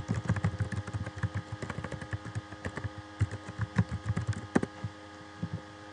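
Typing on a computer keyboard: a quick run of keystroke clicks that thins out near the end, over a steady electrical hum.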